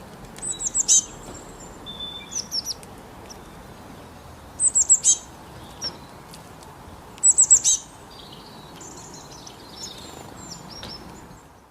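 Songbird calls: three times, a quick run of four or five high notes, each sweeping downward, with softer single chirps between and a jumbled twittering near the end, over a steady outdoor hiss.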